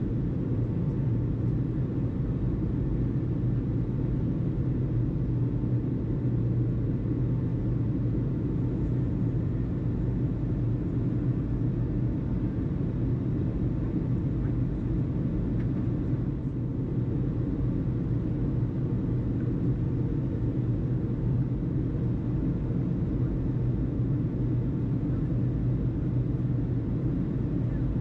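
Steady low rumble of jet aircraft engines at the airport, with no change in pitch or level.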